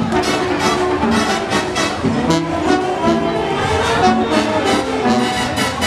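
Brass band music playing, with held horn notes over a fast, steady drumbeat.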